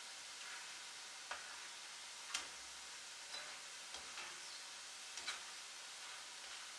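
Rice-flour murukku spirals deep-frying in hot oil with a steady sizzle, while a perforated metal skimmer turning them clicks lightly against the pan several times.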